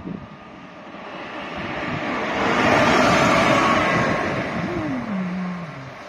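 EF210 electric locomotive running light (no wagons) past on the rails. It grows louder to a peak about three seconds in and then fades, with a tone that drops in pitch near the end as it moves away.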